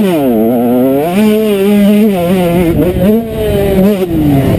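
Motocross bike's engine heard from the rider's helmet camera, revving up and down as the throttle is worked: it rises at the start, holds fairly steady for about a second, dips and climbs again, then falls away near the end.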